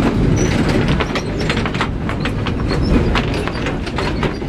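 Vintage Remodelado tramcar running on street track, heard from inside: a steady rumble from the motors and wheels, with quick irregular clicking and rattling from the wheels on the rails and the wooden body.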